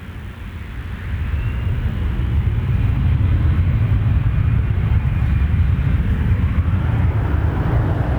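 Jet airliner engines rumbling. The rumble grows louder over the first two or three seconds, then holds steady.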